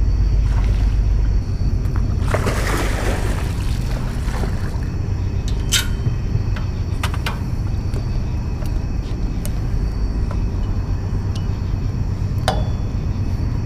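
A hooked catfish splashing at the surface while being reeled toward the dock: a brief rush of water about two seconds in. A steady low rumble runs underneath, with a few sharp clicks later on.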